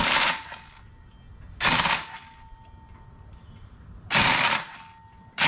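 A pressurized spray hissing in four short bursts, each about half a second long, with a faint steady tone lingering after each burst.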